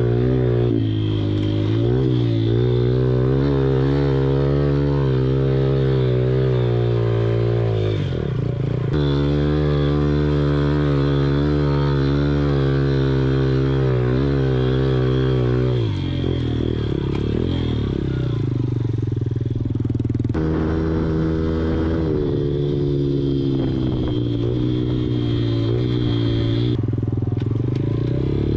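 Small single-cylinder four-stroke pit bike engine (110 cc class) running at fairly steady throttle. Its pitch shifts a few times: about eight seconds in, and again around sixteen and twenty seconds.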